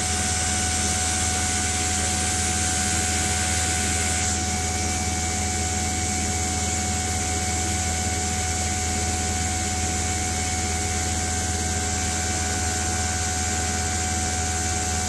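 Koehler automated air release value apparatus running through its glassware preheat: a steady hum under an even hiss, with the highest part of the hiss dropping slightly about four seconds in.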